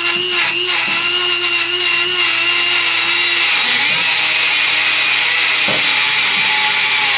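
Small handheld cut-off grinder with its abrasive wheel cutting through a seized body-mount bolt, one the owner can no longer loosen and has to cut off. A steady high whine that drops a little in pitch about three and a half seconds in as the wheel bites into the metal.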